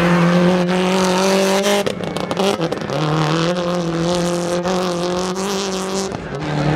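Rally car engine running at high revs on a dirt stage, its note held steady, dropping and wavering briefly about two seconds in, then pulling up again and climbing slowly, with scattered sharp clicks over it.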